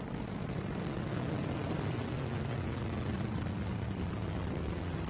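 Antares rocket's first stage, two RD-181 engines, heard from the ground as a steady low rumble while the rocket climbs away about half a minute after liftoff.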